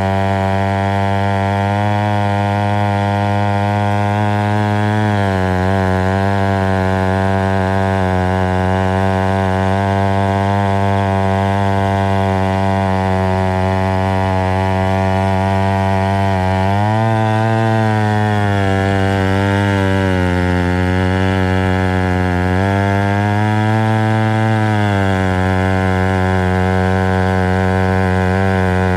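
McCulloch 890 gear-drive chainsaw's 103 cc two-stroke engine running hard while cutting a softwood log. Its pitch drops about five seconds in as it bogs under load, then rises briefly twice later on.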